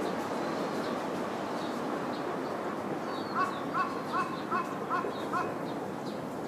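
A bird calling six times in a quick, even series, a little over two calls a second, starting about halfway through, over a steady background hiss.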